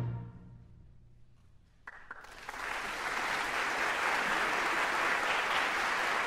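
The concert band's final chord dies away, a low note lingering for about a second, then a short hush. About two seconds in, the audience breaks into applause that builds quickly and keeps going steadily.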